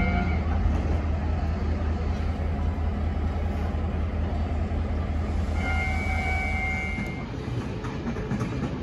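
Steady low rumble of a diesel-electric locomotive's engine idling while it is turned on the turntable, with a brief high steady whine about six seconds in; the rumble eases near the end.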